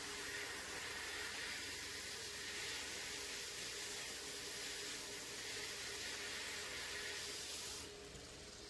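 Steady hiss of a blasting cabinet's air nozzle spraying abrasive onto an aluminium cylinder head. It lets up near the end.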